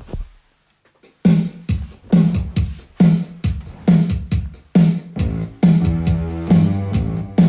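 Electronic music that starts about a second in: a steady drum-machine beat under keyboard chords.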